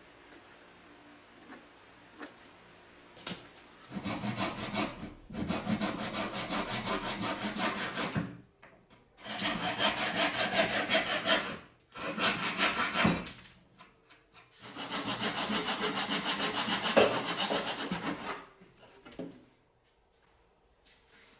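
Handsaw cutting through thin wood: fast, even back-and-forth strokes in four bouts of a few seconds each, with short pauses between.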